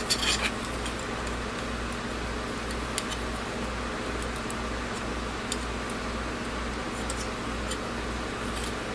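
Small plastic model-kit parts clicking as they are handled and pressed together, wing pieces going onto polycap joints. A quick cluster of clicks comes at the start, then a few single light clicks, over a steady background hum.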